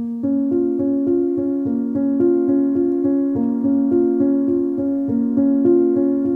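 Music on a keyboard instrument: an even run of pitched notes, about three a second, starting suddenly out of silence.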